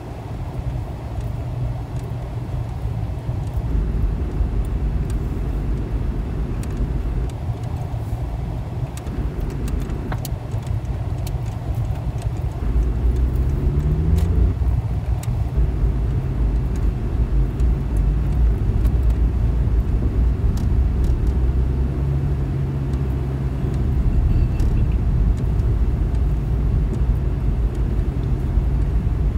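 Car driving: a steady low engine and road rumble, with the engine note rising briefly about 14 seconds in as it picks up speed.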